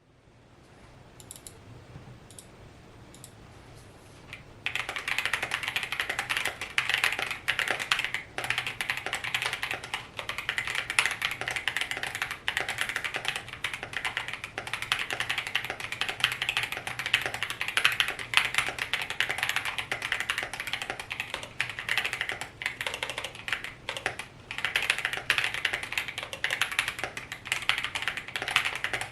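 Typing on an AKKO ACR75 mechanical keyboard: stacked acrylic case, Boba U4T tactile switches and PBT keycaps, with the plasticky sound of the acrylic case. A few faint keystrokes at first, then fast, continuous typing from about four and a half seconds in.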